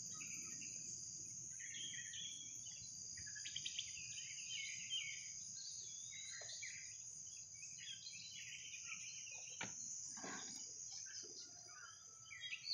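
Insects trilling steadily in a high, even buzz, with many short bird chirps and calls scattered over it.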